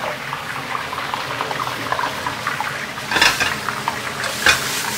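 Hot oil bubbling and crackling steadily around a whole red snapper deep-frying in a wok. About three seconds in, louder sizzling bursts with spatula strokes begin as French beans are stir-fried in a second wok.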